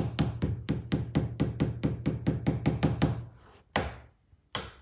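Hammer tapping a nail into the thin fibreboard back panel of a flat-pack wardrobe cabinet: a quick, even run of light strikes, about five a second, that stops after about three seconds, then two single strikes a second apart as the last nail is driven home.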